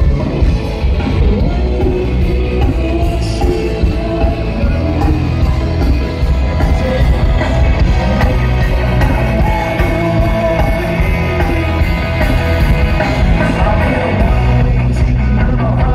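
Live rock band playing, with a singer, loud and heavy in the bass.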